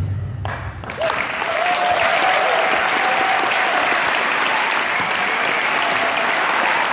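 Music stops, and about a second in an audience breaks into steady applause.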